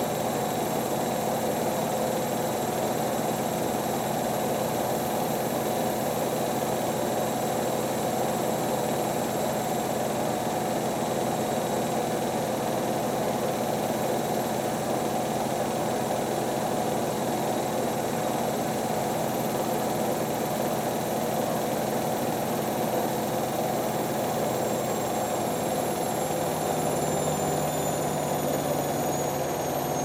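Two washer dryers, a Hotpoint WD440P and a Hoover Nextra, spinning together at high speed with a steady hum and high motor whines. From about twenty seconds in, the whines slowly fall in pitch, and a deeper hum comes in near the end.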